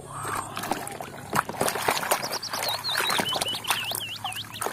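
Muddy water sloshing and splashing in a plastic basin as a plastic toy bus is dunked and rubbed by hand, with small knocks of plastic. Midway through, a bird gives a quick run of swooping whistles.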